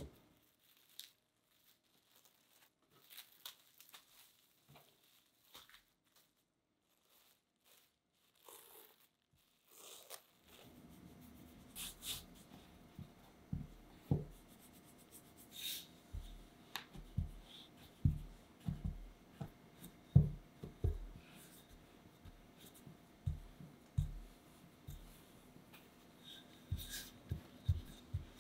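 A few faint crinkles of plastic wrap around a slab of dough. About ten seconds in come irregular soft thuds and taps of hands pressing and folding chocolate pastry dough on a floured countertop, then a wooden rolling pin working the dough near the end.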